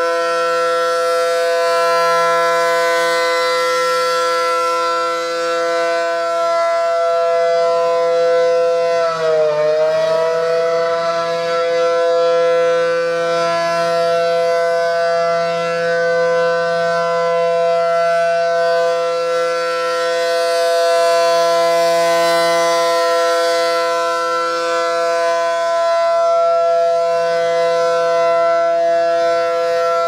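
ACA Allertor 125 rotating civil defence siren sounding the steady Alert tone. Its pitch holds steady apart from a brief sag about nine seconds in, and the sound swells and fades as the horns turn. The rotor jerks during the test, which the owner takes as a sign that it will soon give out.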